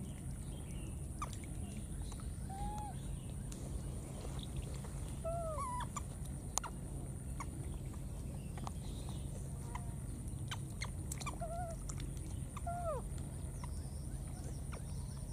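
Baby macaques giving short squeaky calls that rise and then fall in pitch, one every second or two, some in quick pairs, with scattered small clicks and splashes as they tussle in shallow water.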